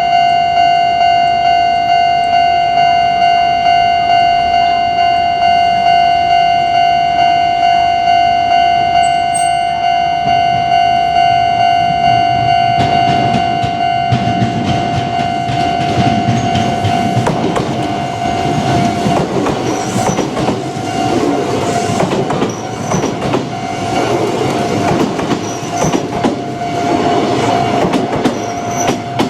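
Japanese level-crossing warning bell ringing in an even, repeating beat. From about 13 seconds in, a Kintetsu Nagano Line train passes over the crossing with its wheels clattering over the rail joints, while the bell keeps ringing.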